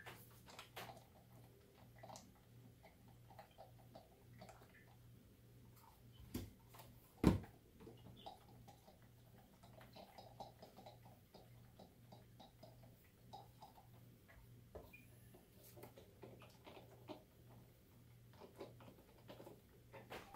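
Lidded plastic containers of egg dye being lifted, gently swirled and set down on a countertop: faint scattered plastic clicks and taps, with a sharper knock about seven seconds in.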